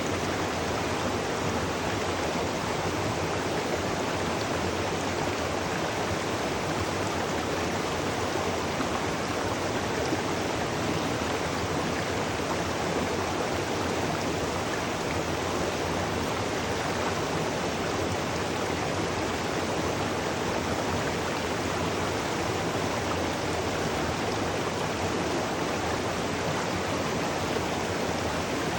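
Waterfall: falling water splashing into a pool and stream, a steady, even rush with no breaks.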